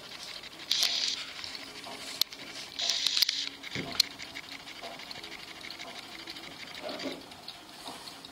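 Small antique mother-of-pearl Zappler clock, its short pendulum swinging in front of the dial, ticking fast and lightly.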